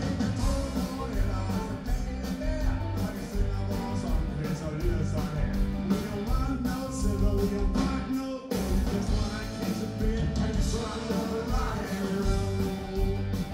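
Live blues-rock band playing: electric guitars, bass and drum kit with a wavering lead line on top, and a brief stop about eight and a half seconds in before the band comes back in.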